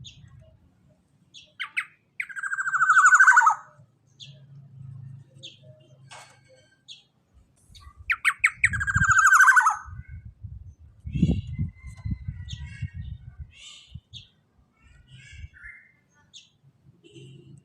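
Black-naped oriole giving two loud, harsh calls that fall in pitch, each lasting about a second and a half and about six seconds apart, with short, faint high chirps in between.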